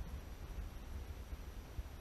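Faint, uneven low rumble of wind and movement on a body-worn action camera's microphone, with a light hiss over it.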